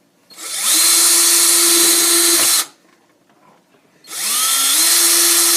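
Electric drill with a 9/64-inch bit drilling the top ear holes through the stormtrooper helmet's plastic ear and shell, in two runs. Each run rises in pitch as the motor spins up and then holds a steady whine. The first stops after about two seconds, and the second starts about four seconds in.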